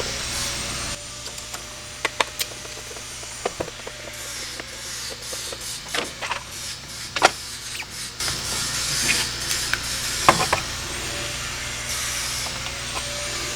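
Plastic housing of a cordless leaf blower being handled and turned over, with scattered sharp clicks and knocks over rubbing and scraping.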